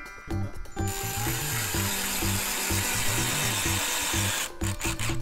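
Ryobi cordless drill driving a screw through a galvanised steel floor flange into plywood. It starts about a second in and runs steadily until shortly before the end, with background music's steady beat underneath.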